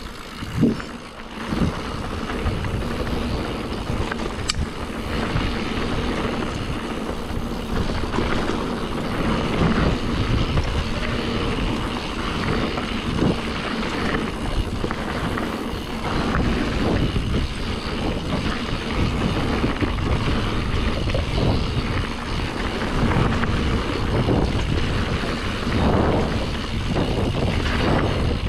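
Mountain bike descending a dirt trail at speed: a steady rush of wind on the microphone over the rumble of the tyres, with a few knocks in the first couple of seconds.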